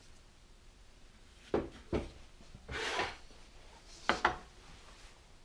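Hand tools handled on a wooden workbench: two sharp wooden knocks, a brief scraping rustle, then two quick knocks as a long tool is laid across the freshly planed walnut board.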